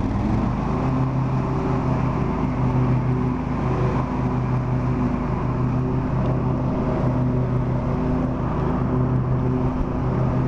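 Riding lawn mower's engine running steadily under way, holding an even, unchanging note.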